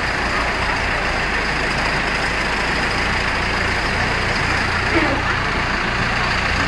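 Steady rush of fast-flowing floodwater pouring down a street, with a low rumble underneath.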